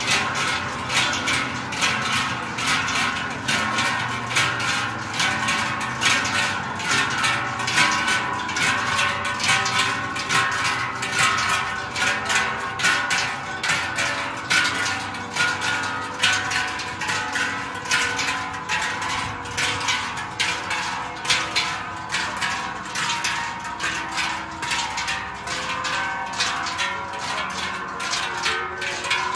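A group of large Swiss Treicheln, hammered sheet-metal cowbells, swung together in a steady rhythm. They make a continuous pulsing clang of many bells ringing at once.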